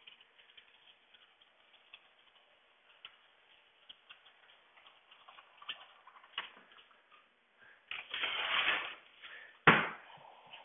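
Faint scattered clicks and ticks of hand work at a window frame, then a louder rustling scrape about eight seconds in, and one sharp knock near the end as window parts are handled.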